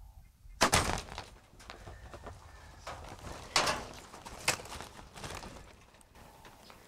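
A loud knock a little over half a second in: the top limb of a 62-pound Black Widow recurve bow striking the side of the pit blind as the arrow is shot. Further sharp knocks and scuffling follow about three and a half and four and a half seconds in.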